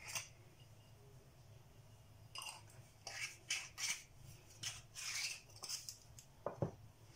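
Salt mill being twisted over a bowl of flour and sugar to add a little salt: a run of short, faint gritty rasps from about two and a half seconds in until about six seconds, then two light clicks near the end.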